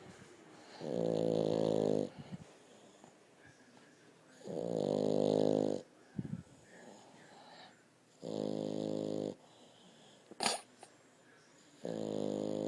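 A dog snoring in its sleep: four long pitched snores, one about every three and a half seconds, with a short sharp click between the third and fourth.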